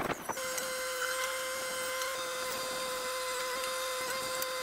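Mini excavator running while digging soil, a steady whine.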